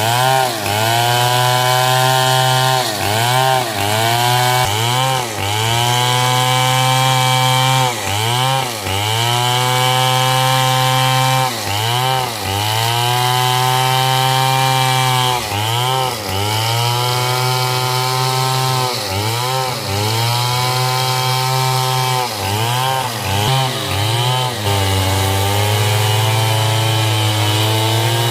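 Stihl two-stroke chainsaw cutting hardwood coconut wood at high revs, its engine note repeatedly sagging and recovering as the chain bites into the wood. Near the end it settles to a steadier, lower note.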